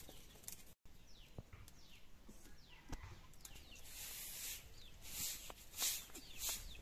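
Faint outdoor yard ambience with birds chirping in short downward-sliding calls, and a few light clicks and knocks.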